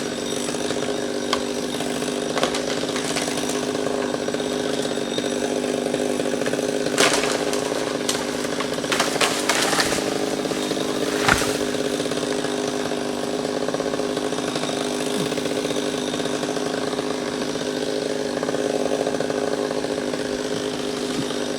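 Chainsaw engine running steadily at a constant pitch, with a few brief crackling noises about a third and halfway through.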